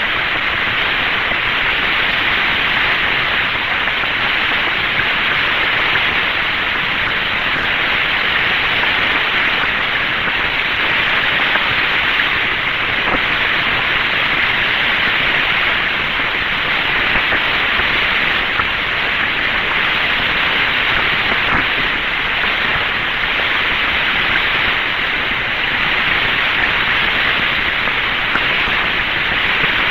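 Steady hiss of static on the Mercury Friendship 7 capsule's 1962 voice recording, even and unbroken, thin and cut off in the highs.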